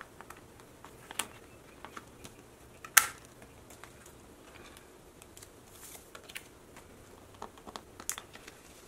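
Light clicks and plastic rustling as cards are slid into the plastic pocket pages of a ring binder, with one sharper click about three seconds in.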